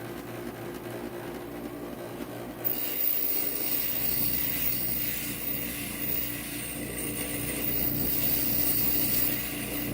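Inland stained-glass grinder's motor running steadily; about three seconds in, a glass piece is pressed against the spinning diamond bit and a gritty grinding hiss starts and continues, taking a little off a corner that fits too tight.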